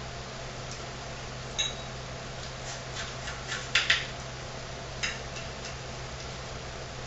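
Knives and forks clinking and scraping against plates as two people cut into their food: a scatter of short sharp clicks, the loudest pair a little under four seconds in, over a steady low hum.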